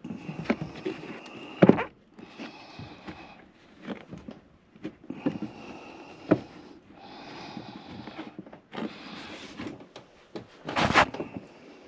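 A deteriorating plastic windshield cowl trim being pried and pulled out of its clips: scraping and rustling of plastic, broken by several sharp snaps, the loudest near the end.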